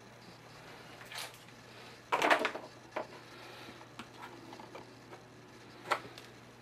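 Handling noise from gloved hands working epoxy paste off a cardboard palette onto a concrete wall. There is a brief rustling scrape about two seconds in, and a few light clicks and knocks, over a low steady hum.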